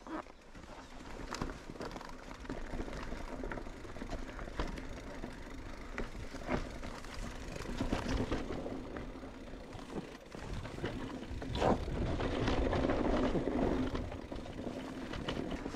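Mountain bike rolling over a rough trail: tyre noise with frequent rattles and knocks from the bike, louder for a few seconds near the end.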